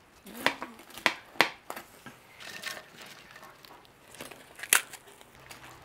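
Crisp chicharrón (fried pork rind) being broken apart by hand over a clay cazuela: several sharp crackling snaps, the loudest near the end.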